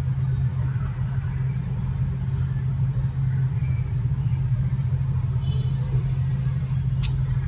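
A steady low rumbling hum throughout, with a single sharp click near the end.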